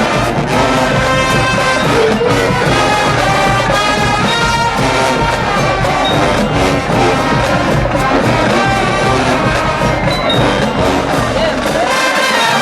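HBCU show-style marching band playing loudly, a full brass section over drums. The lowest drums drop away near the end.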